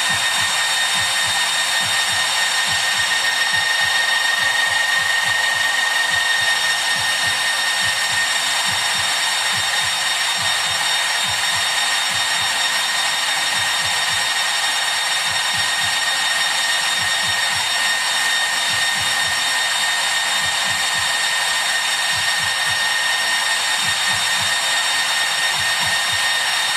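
Small DC cooling fans on a Peltier cooler's heatsink running steadily: a constant airy whir with a high, even whine over it.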